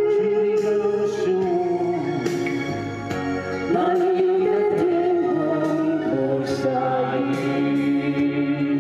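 A man and a woman singing a duet into handheld microphones over backing music, with long held notes sung with vibrato; a new phrase starts a little under four seconds in.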